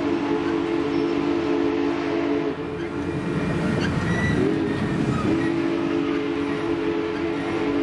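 Union Pacific Big Boy 4014's steam whistle sounding a long chord, over the rumble of the moving train. About two and a half seconds in the chord breaks off, slides back up in pitch and is held again from about five seconds in.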